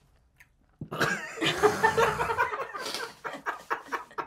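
Hearty laughter from several people breaking out about a second in, ending in quick, rapid bursts of ha-ha.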